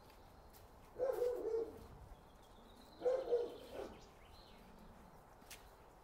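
Two short, low-pitched animal calls about two seconds apart, each falling slightly in pitch and standing out over a faint background.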